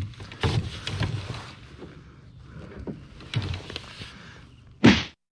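Rustling and knocking of gear being handled in a kayak, in two stretches, with a short loud thump just before the end.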